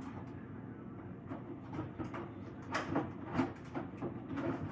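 Scattered light clicks, knocks and rustles from parts and packaging being handled during an unboxing, over a low steady hum.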